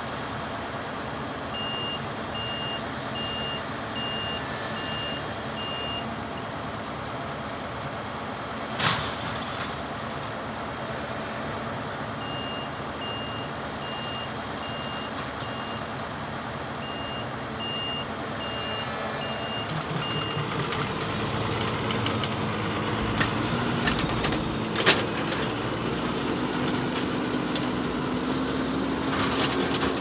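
Claas Lexion combine harvester's diesel engine running steadily, with a reversing alarm beeping about twice a second in three spells. A sharp knock comes about a third of the way in and another near the end. In the last third the engine sound grows louder, with a rising note.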